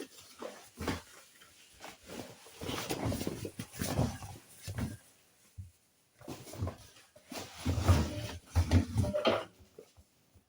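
Hoover washing machine starting its wash cycle: the drum motor hums in short bursts between knocks and rustles as the drum turns the load.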